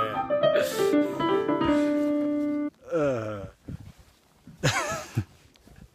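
Piano notes played in a flowing run, cutting off abruptly a little under three seconds in. Then a man's voice: a long falling vocal slide, and a second later a short wavering vocal sound.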